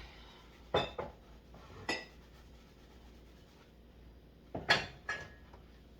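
Dishes knocking and clinking against each other as they are washed and handled by hand: four short, sharp knocks, some with a brief ring, about a second in, near two seconds, and twice close together later on.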